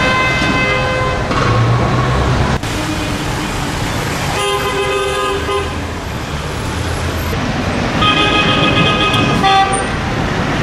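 Car horns honking in long held blasts over steady street traffic, several times, with horns of different pitches.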